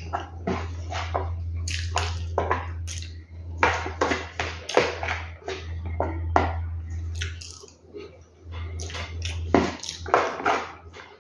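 Close-up eating sounds: wet chewing of a mouthful of rice, beans and pasta mixed with the clink and scrape of a spoon stirring through food in a plastic bowl, in short irregular strokes over a steady low hum.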